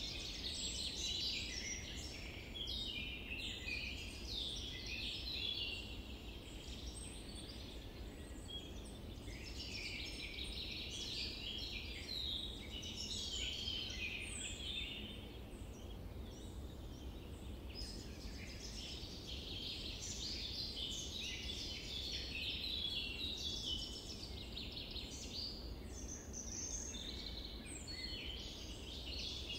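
A dense chorus of many birds chirping and calling, the calls overlapping without a break, over a steady low background rumble.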